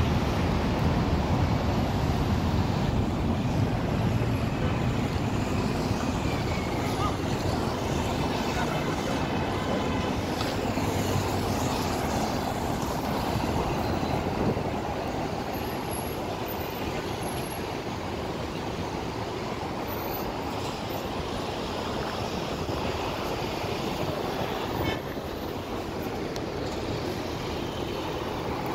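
Busy city road traffic: cars passing close by, their engines and tyres on the road forming a steady rumble, a little louder in the first half.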